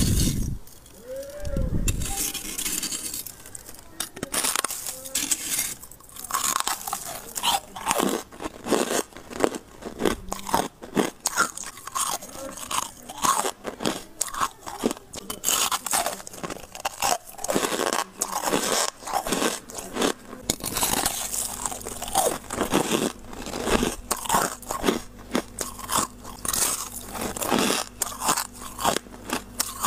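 Freezer frost ice crunching: a dense run of irregular, close crunches.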